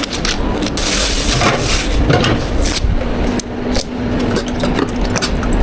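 Drink-preparation clatter at a bubble tea counter: a run of knocks and clicks of utensils, cups and containers being handled and set down, with a short burst of noise about a second in and a steady low hum starting about three seconds in.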